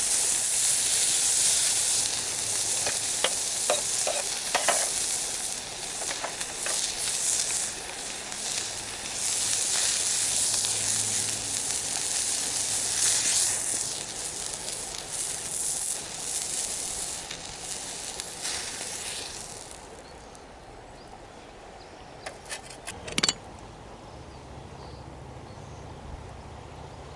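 Beef sagari sizzling as it grills over a small wood fire, loud and crackly for about twenty seconds, then dying down to a faint hiss. A few sharp clicks come near the end.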